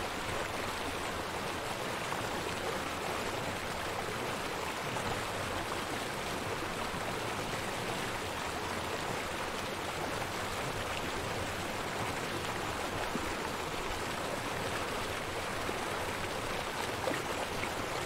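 Steady, even rush of heavy storm rain and rough water.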